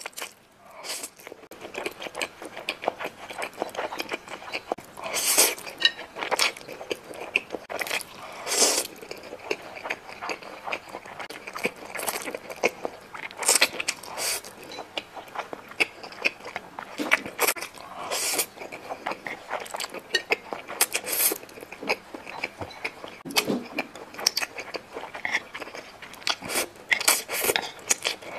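Slurping and chewing of thick noodles in soy bean paste sauce, with irregular wet mouth smacks and slurps throughout.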